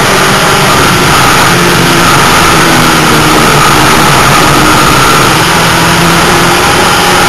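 Dirt-track race car engine running hard at racing speed, heard from inside the cockpit. It is loud and steady throughout.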